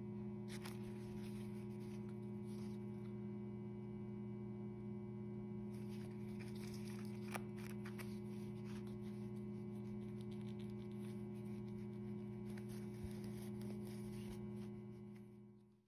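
Steady low electrical mains hum, with a few faint rustles and light taps from hands handling a plush toy and its tag. The sound fades out near the end.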